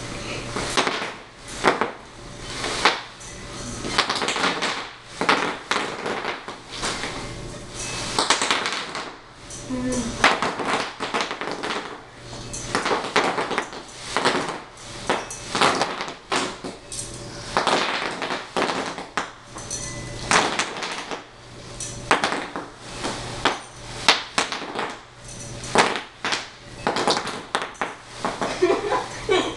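Bubble wrap popping under wheelchair wheels as it rolls over the sheets: many sharp pops, irregular and in quick clusters.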